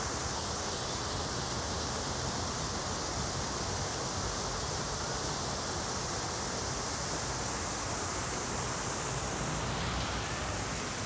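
Decorative water fountain's tall jets falling back into the basin: a steady rushing, splashing hiss. It gets a little softer near the end.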